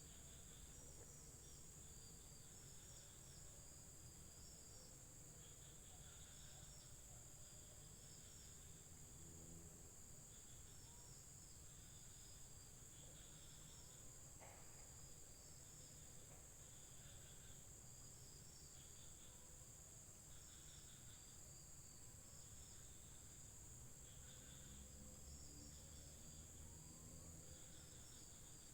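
Faint evening insect chorus: a steady high buzz with short chirping trills repeating about once a second, and a single faint click about halfway through.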